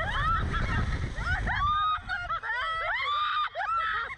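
Two women screaming and laughing on a Slingshot ride: high, drawn-out shrieks that slide up and down in pitch, breaking into laughter. For the first second and a half wind rumbles heavily on the microphone as the seat is flung through the air.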